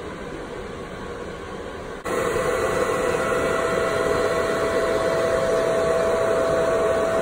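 Antminer S9 ASIC miner's 120 mm cooling fan running, blowing out through a dual-exhaust silencer shroud: a steady rush of air. About two seconds in it turns abruptly louder, with a steady mid-pitched whine over the rush.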